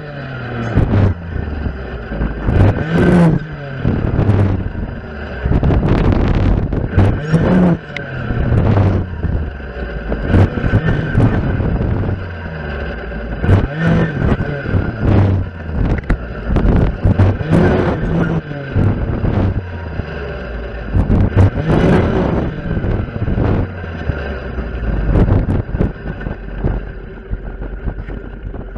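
Stihl FS 460 clearing saw's two-stroke engine revving up and dropping back again and again as its saw blade cuts through saplings and undergrowth, with sharp knocks as the blade strikes stems and branches.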